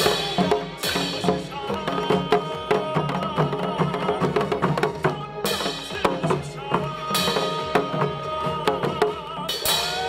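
Korean janggu hourglass drums beaten in a fast, dense rhythm along with melodic music.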